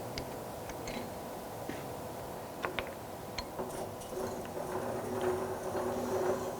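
Four-roll plate-rolling machine: a few sharp metallic clicks as the sheet is handled, then about three and a half seconds in a steady mechanical hum starts up and builds slightly as the rolls run.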